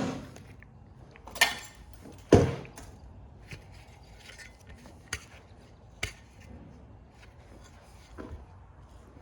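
Scattered clinks and knocks of hand tools and metal screws and parts being handled while a printer is taken apart. Two louder knocks come about one and a half and two and a half seconds in, then a few lighter clicks.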